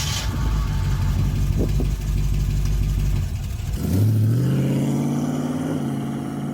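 Car engine running steadily just after starting, then revved once about four seconds in, the pitch jumping up and easing back as it fades.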